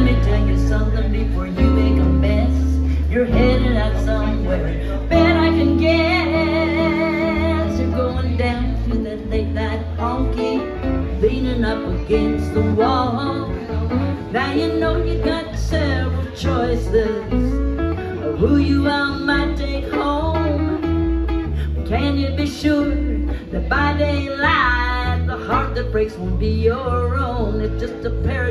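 Live country band playing on electric guitar, acoustic guitar and electric bass.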